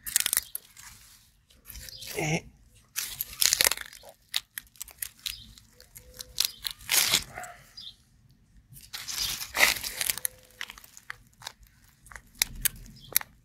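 Dry wood-chip mulch and papery garlic leaves crunching and rustling in irregular bursts as a hand digs around a garlic bulb to pull it up.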